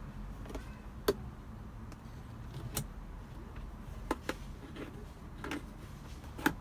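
Scattered light clicks and small knocks of a plug being handled and pushed into a 12-volt power outlet in a car's center console, over a low steady hum.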